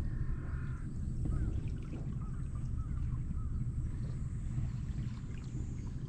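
Steady low rumble, with a few short, high chirping calls over it in the first three seconds.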